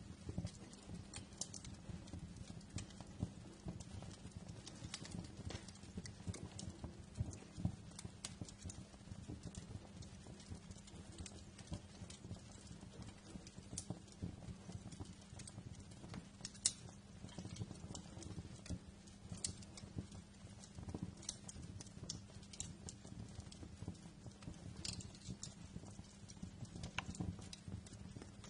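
Wood fire crackling, with a constant low rumble of the flames and frequent irregular pops and snaps, a few sharper than the rest.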